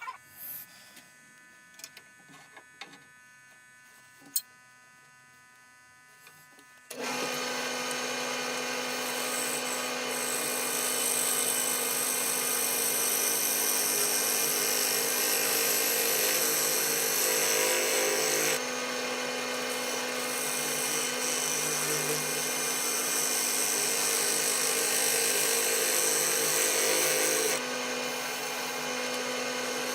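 Wood lathe starting suddenly about seven seconds in after a few faint clicks, then running steadily with a hum and hiss, the level dipping slightly twice.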